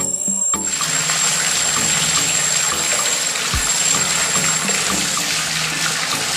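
Liquid pouring in a steady stream from a miniature juice machine's spout into a small brass pot, starting about half a second in.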